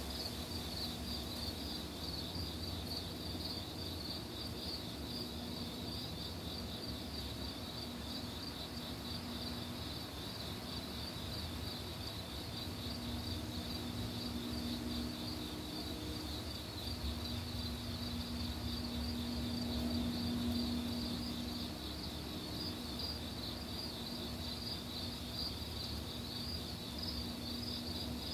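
A steady chorus of night insects chirping in a fast, even pulse. A low hum comes and goes in the background through the middle.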